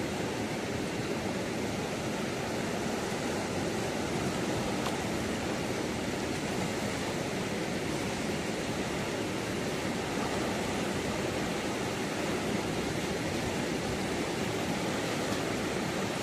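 Steady rush of fast-flowing river water, an even noise with no letup.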